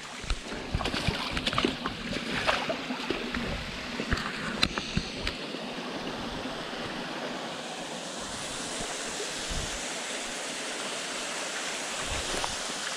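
Shallow rocky creek running, a steady rush of water that grows fuller over the second half. Footsteps crunch on stream gravel and stones in the first few seconds.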